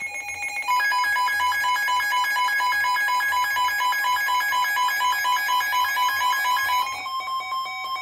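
Several weather alert radios sounding their alarms together: a loud, rapid beeping warble of alternating high and low tones, layered over one another, signalling an incoming weather warning. About a second before the end most of the beeping stops, leaving a single steady tone.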